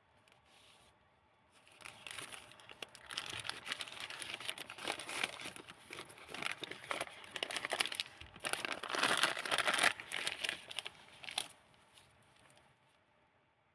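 Pages of a handmade junk-journal book made of old book paper being turned and handled, crinkling and rustling for about ten seconds, loudest near the end, then dying away.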